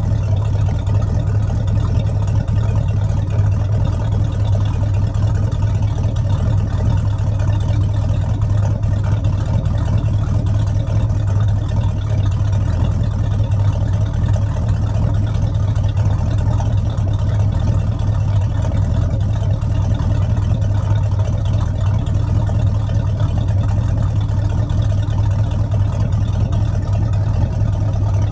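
Chrysler 318 marine small-block V8 in a wooden Chris-Craft runabout idling steadily, heard at the twin transom exhaust outlets, on its first successful run with a new cooling system.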